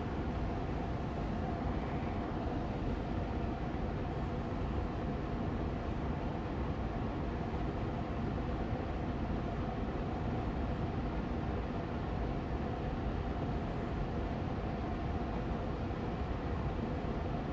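Austin Air Allergy Machine air purifier fan running steadily on medium speed: an even rush of air with a faint steady hum underneath.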